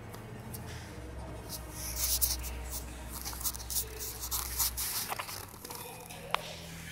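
Rustling and scraping handling noise on a handheld phone's microphone, a run of short clicks and scratches in the middle seconds over a low hum, with one sharper click near the end.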